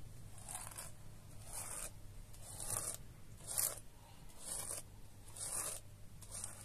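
Rhythmic scraping strokes, about one a second, each a short rasp, over a steady low hum.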